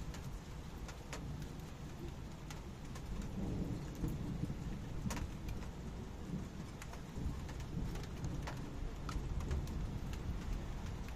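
Heavy rain shower, with single drops ticking sharply on a nearby surface over a low, continuous rumble of thunder that swells a few seconds in.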